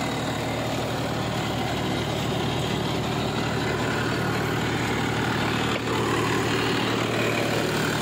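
John Deere 5210 tractor's three-cylinder diesel engine running steadily under load, driving a 7-foot rotavator working fully lowered in the soil.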